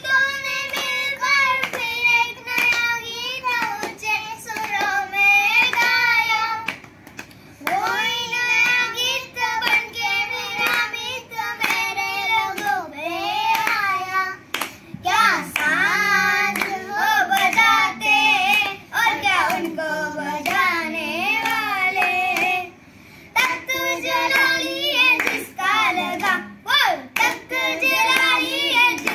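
Two young boys singing a Hindi Christian devotional song (masihi geet) without instruments, clapping their hands along with the song.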